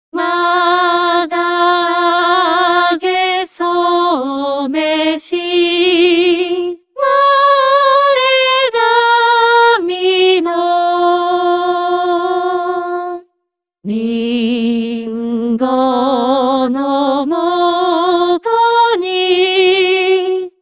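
NEUTRINO synthesized singing voices singing a slow, unaccompanied Japanese melody. The phrases are long and held, with vibrato on the sustained notes, and there is a brief pause about two-thirds of the way through.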